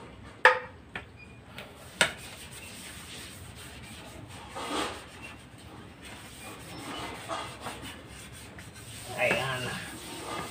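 Cookware being scrubbed by hand: a metal pan knocks sharply a few times in the first two seconds, then comes a longer stretch of rubbing.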